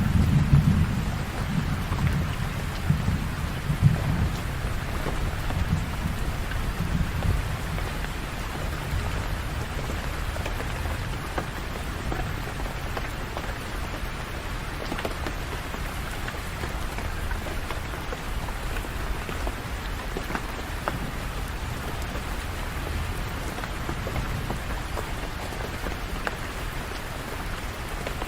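Steady rain falling, with scattered drops ticking on hard surfaces. A low rumble of thunder is strong through the first several seconds and fades away, leaving the rain alone.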